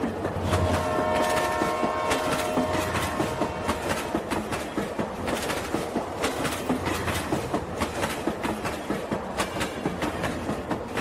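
Train sound effect: a steady, rapid clickety-clack of wheels on rails, with a horn sounding from about half a second in for about three seconds.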